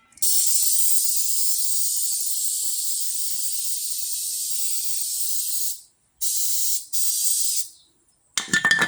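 Aerosol spray can hissing in one long spray of about five and a half seconds, then two short spurts, with a few clicks near the end.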